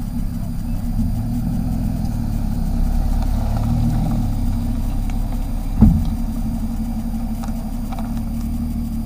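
Car engine idling steadily, swelling a little a few seconds in, with one sharp thump near the middle.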